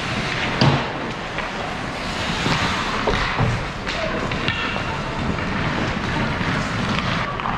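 Ice hockey play in an indoor rink: a steady wash of skates on the ice, with a sharp knock under a second in and a few lighter clacks of sticks and puck a few seconds later.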